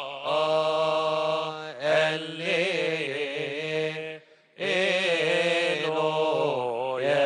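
Male chanting of a Coptic Orthodox liturgical hymn: long, melismatic held notes that waver in pitch, broken by a short pause for breath about four seconds in.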